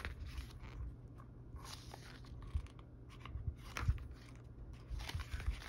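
Pages of a paper photobook being turned by hand: soft paper rustles and light handling knocks, with one sharper knock a little after halfway.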